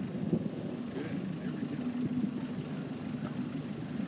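Motorboat engine running steadily, heard from on board as a low, even drone.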